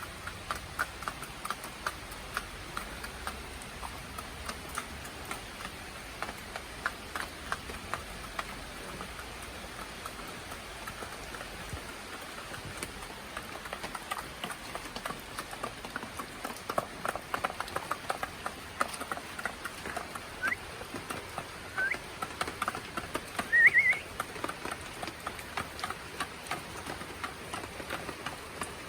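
Backyard chickens pecking at feed: many quick, irregular taps and clicks. A few short rising chirps come near the end, the loudest about 23 seconds in.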